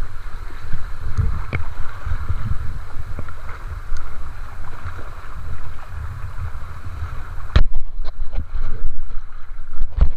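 Wind buffeting the camera microphone in heavy, uneven gusts over the rush of choppy sea water. About three quarters of the way in comes a loud knock. After it the sound turns muffled, with several more knocks and thumps as the camera is handled or dipped.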